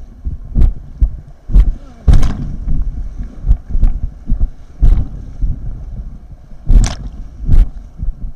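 River water and wind rumbling on a helmet-mounted action camera's microphone from an inflatable kayak on whitewater, with a sharp splash-like hit about once a second.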